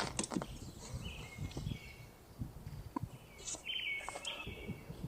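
Wild birds singing, a short chirping song phrase heard twice, with a few faint clicks and knocks of handling.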